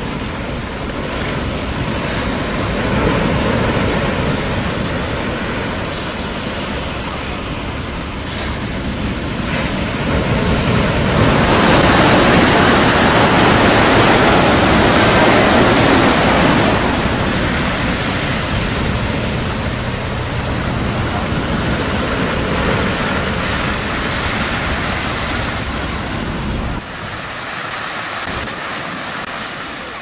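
Strong wind rushing over a rough sea with surf, a loud steady noise that swells about a third of the way in and eases off again past the middle. It drops abruptly near the end.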